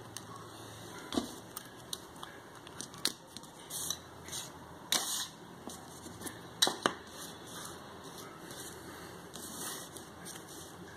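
Irregular small clicks, taps and brief scrapes of small tools and plastic parts being handled while a Canon PowerShot A2400 compact camera's lens unit is taken apart, the sharpest clicks about five and six and a half seconds in.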